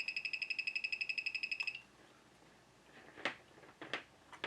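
Electronic beeper of a dbx CT3 cable tester sounding a fast, steady pulsing high beep that stops a little under two seconds in. A few sharp plastic and metal clicks follow near the end as connectors are handled.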